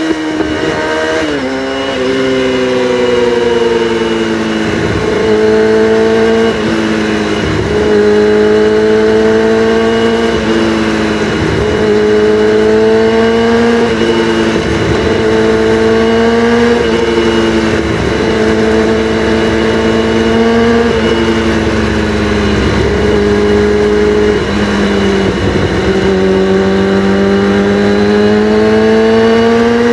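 Kawasaki ZX-6R inline-four sport bike running through its exhaust with the catalytic converters deleted, held on the throttle with the pitch rising and falling gently and short dips every few seconds.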